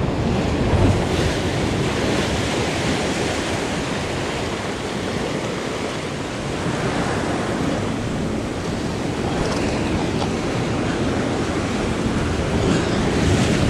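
Surf surging and washing between the boulders of a rock breakwall, a steady rush of breaking water.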